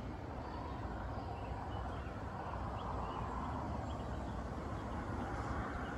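Outdoor storm ambience: a steady rushing noise with a low rumble, typical of wind on the microphone, with a few faint bird chirps.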